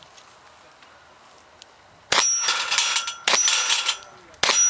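Three shots from a Smith & Wesson 610 revolver, a little over a second apart, the last near the end. Each is followed at once by the ringing clang of a steel plate on a plate rack being hit and knocked down.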